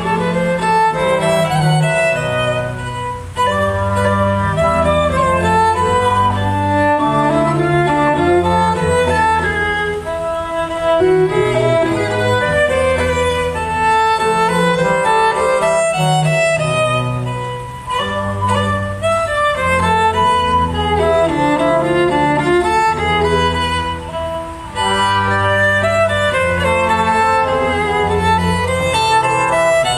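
Renaissance instrumental ensemble of Renaissance violin, fidel, viola da gamba, trombone, pommer and flute playing a Mazovian folk dance melody, a bowed-string tune over a steady bass line. The music pauses briefly between phrases a few times.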